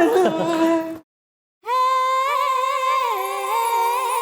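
Voices break off abruptly about a second in, followed by a half-second of silence. A wordless sung melody from the background score then comes in, with held notes sliding slowly up and down in pitch.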